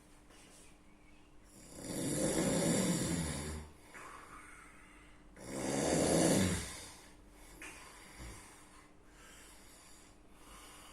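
A sleeping person snoring loudly: two long snores about four seconds apart, with quieter breathing between them.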